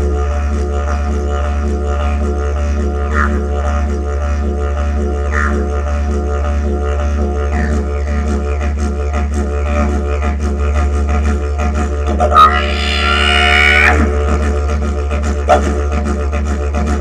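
Didgeridoo playing a continuous low drone with a rhythmic pulse of about two beats a second. About three quarters of the way through, a loud, higher call bends in pitch over the drone for a second or two, then the steady pulsing drone carries on.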